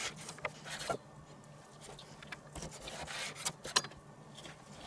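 Chef's knife sawing through a slab of bacon on a wooden cutting board: quiet, irregular scraping and rubbing strokes, with a couple of sharper clicks of the blade on the board near the end.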